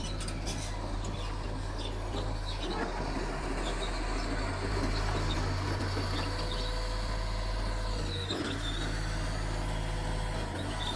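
Mitsubishi bulldozer's diesel engine running steadily under work, with a short dip about eight seconds in.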